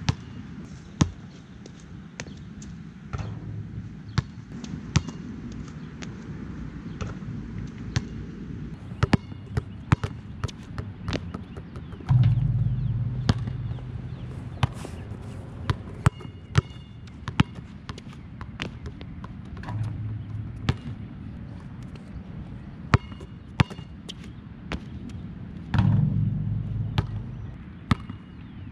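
Nike Jordan Hyper Grip 4P rubber basketball bouncing again and again during shooting practice: sharp, irregularly spaced bounces over a steady low hum. Twice, about 12 and 26 seconds in, a louder low rumble starts suddenly and fades over two or three seconds.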